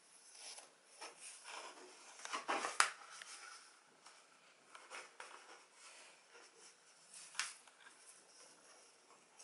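Light scattered scratching and tapping of a cardboard toilet-paper tube as a cat paws and bites at it, with two sharper clicks a few seconds apart.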